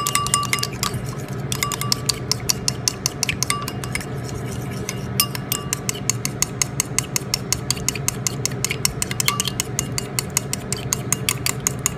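A metal spoon whisking a lemon juice and olive oil dressing in a small bowl, clinking rapidly against the bowl's sides about five times a second, with a couple of brief pauses.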